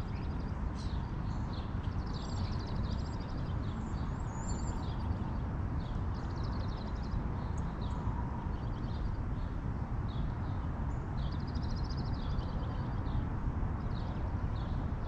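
Small songbirds chirping and giving short high trills again and again, over a steady low rumble of wind on the microphone.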